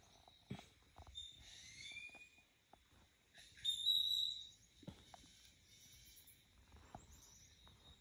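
Small birds chirping and whistling from a bird video played through a laptop's speakers, with one louder, longer whistle about four seconds in. A few faint taps are heard between the calls.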